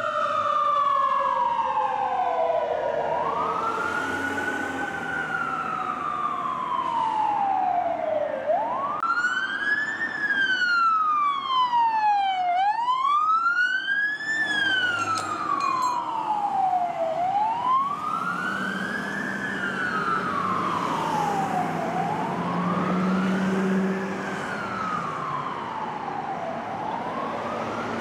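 Sirens of responding fire department vehicles wailing, each rise and fall taking about three to four seconds. Near the middle a second siren joins for a few seconds with quicker, higher sweeps.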